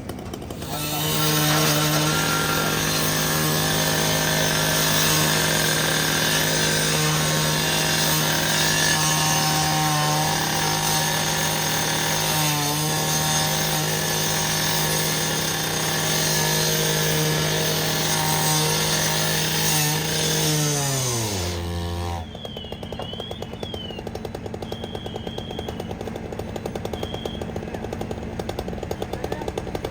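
A firefighters' two-stroke power saw runs at high revs for about twenty seconds, with brief dips in pitch as it bites. It is then shut off and winds down, its pitch falling away.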